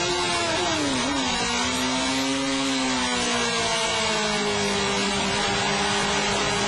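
Superbike engine heard on board: the revs fall sharply about a second in, then hold fairly steady at a lower pitch.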